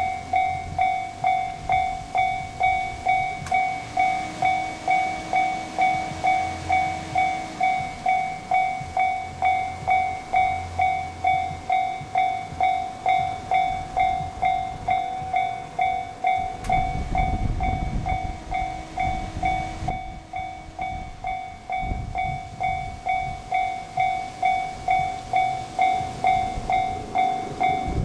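Railway level-crossing warning bell ringing steadily, about one and a half strikes a second. A low rumble of a diesel train swells beneath it about two-thirds of the way through.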